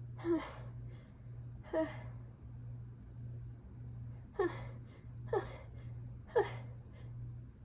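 A woman's short, sharp gasping inhalations as a sneeze builds: five quick catches of breath, the first two spaced out and the last three about a second apart, over a steady low electrical hum.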